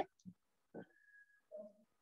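Near silence: room tone with a few faint, brief small sounds.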